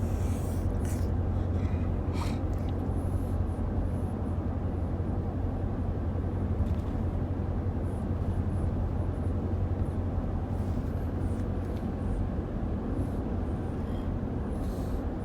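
Steady low hum of a moving car heard from inside the cabin: engine and road noise.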